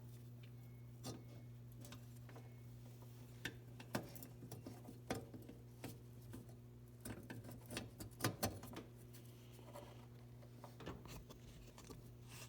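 Faint, irregular clicks and light taps of a halogen headlight bulb and its wire retainer clip being handled and seated in the headlight housing, with a small cluster of clicks a little past the middle.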